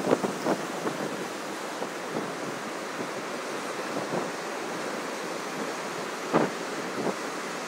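Storm surf breaking steadily on the shore, with wind buffeting the microphone: a few hard gusts near the start and again about six and a half and seven seconds in.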